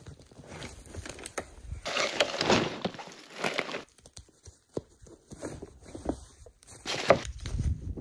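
Camping gear being unpacked from a plastic sled: rustling bags and packs, a few sharp knocks of gear on the sled, and footsteps in dry grass.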